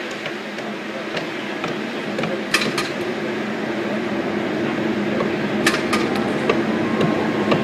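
Jugs football passing machine running steadily with its wheels whirring, slowly growing louder, with several sharp smacks about two and a half, three, and six seconds in.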